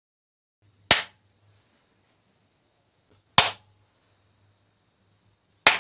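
Three single sharp hand claps about two and a half seconds apart, each one a trigger for a clap-switch circuit built around a 4017 IC that switches a bulb through a relay.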